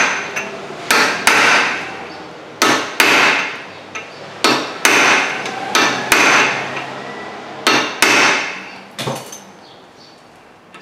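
Hammer blows on a hand impact driver seated in a brake rotor's retaining screw, knocking the tight screw loose. About ten sharp metallic strikes, mostly in quick pairs, each with a brief ring, getting weaker toward the end.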